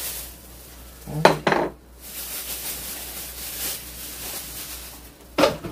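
Chopsticks and a spoon clicking and scraping against bowls and plastic takeout containers while eating. There is a louder clatter about a second in and another near the end.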